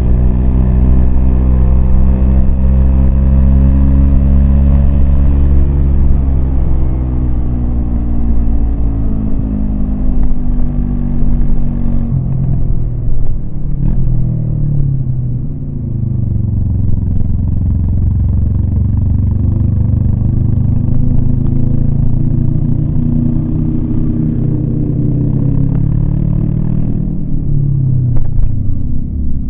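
Yamaha MT-25's parallel-twin engine running under load on a climbing ride, its pitch rising and falling with the throttle: steady at first, dropping after about six seconds, dipping and climbing again in the middle, and easing off near the end.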